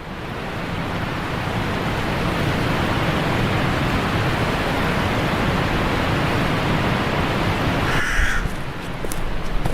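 A steady rushing noise fades in and runs evenly, then cuts off abruptly about eight seconds in. A single harsh bird call, crow-like, comes just after, followed by a few sharp clicks.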